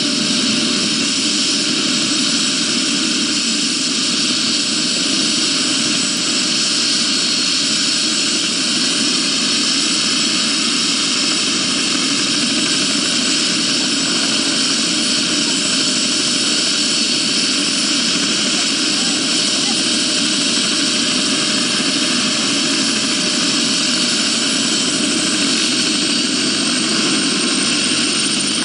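A police helicopter's turbine engine and main rotor running steadily on the ground, with a high turbine whine over the rotor noise. The whine edges slightly higher near the end.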